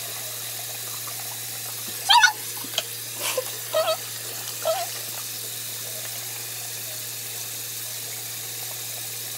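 Tap water running steadily into a sink while a face is washed with a washcloth. A few brief high-pitched sounds come between about two and five seconds in.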